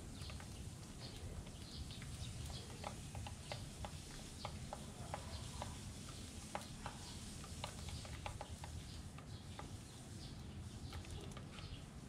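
Sparrows pecking seed off a hard plastic tray: an irregular patter of small sharp taps, with a few faint short chirps now and then.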